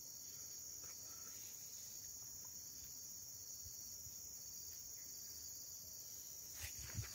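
Insects chirring: a steady high-pitched drone, with a couple of soft footsteps near the end.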